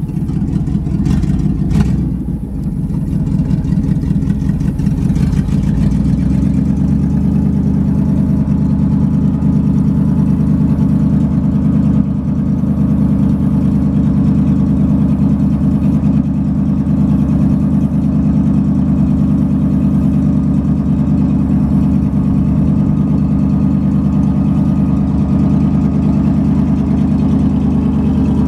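The 1960 International B170 grain truck's engine running steadily, with a few clunks near the start, while the bed hoist raises the grain box.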